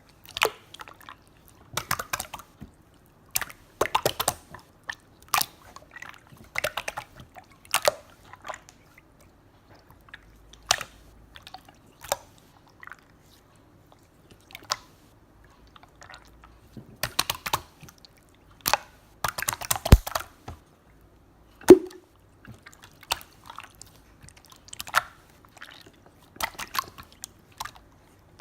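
Slime being squished and played with by hand, making irregular sharp clicks and pops. Some come in quick clusters, others alone, with short quiet gaps between.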